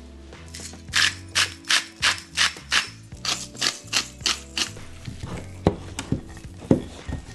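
Salt mill grinding over a glass bowl in a run of about a dozen quick twists, about three a second. From about five seconds in, a spatula stirs thick yogurt against the glass bowl in duller, lower strokes.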